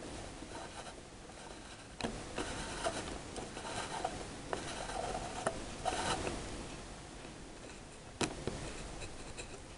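Small brass Meccano gears and a steel shaft in a model crane's winch mechanism being turned by hand: irregular clicking and rubbing, with one sharp click near the end.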